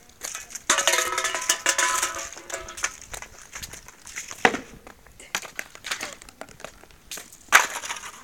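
Footsteps crunching and scuffing through scattered street litter of plastic bottles, cans and paper, with clinks and crackles as the rubbish is stepped on and kicked. About a second in, a held pitched sound runs for about two seconds over the crunching, and a sharp knock stands out near the end.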